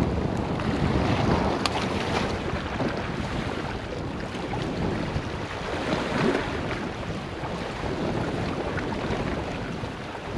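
Wind rumbling on the microphone over sea water washing against rocks, with a single short click about two seconds in.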